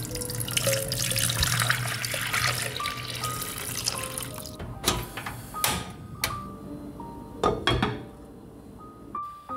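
Water pouring from a plastic jug into a pot of potatoes, a splashing rush that stops about four and a half seconds in. Then a few sharp clinks and knocks as a glass lid goes onto the pot.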